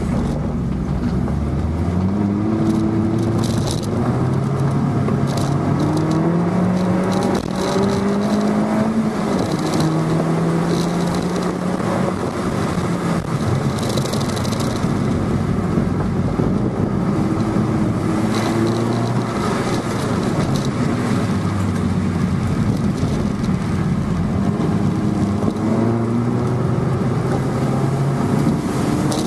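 Interior of a 2011 MINI Cooper S (R56 LCI) under hard driving: its 1.6-litre turbocharged four-cylinder engine's revs climb in steps through the gears and fall back for corners, several times over. Hiss of tyres on the wet track runs underneath.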